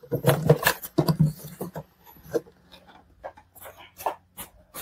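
Scattered clicks and rubbing of hard plastic as hands work the back of a car headlight assembly around its round plastic dust cap.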